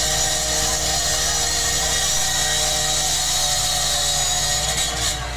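Power cutter running steadily as it cuts into a steel folding shop gate, a harsh grinding hiss over a steady motor tone. It cuts off near the end.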